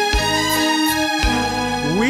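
Instrumental interlude of a song: held chords over a steady beat, with a strike about every 0.4 seconds. Right at the end a male singer comes in on a rising note.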